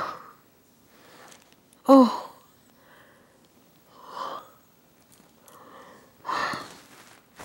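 A woman sobbing: short wailing sobs that fall in pitch, one at the start and a louder one about two seconds in, then breathy, sniffling gasps around the middle and near the end.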